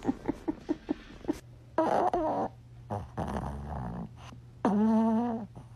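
A man laughing in short breathy pulses, then a small Chihuahua-type dog vocalizing with its head thrown back. The dog gives a rough grunt-like sound, then one steady drawn-out call about five seconds in.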